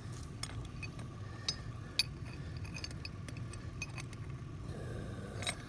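Steel bow shackles and clip clinking against each other and against the steel star picket as they are handled and fitted: a scatter of separate sharp metallic clicks over a steady low rumble.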